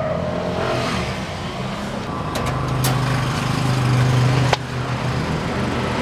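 A motor vehicle engine running steadily at idle. A few light clicks come in the middle, and one sharp click about four and a half seconds in.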